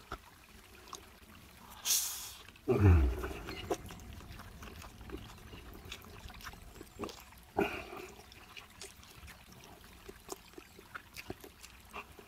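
Close-up mouth sounds of a person eating fried instant noodles: a loud slurp about two seconds in, then a low, falling sound, followed by wet chewing with many small clicks and smacks, and another slurp near eight seconds.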